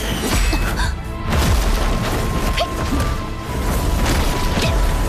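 Animated battle sound design: background music under several heavy booms and crashes of magic-blast impacts.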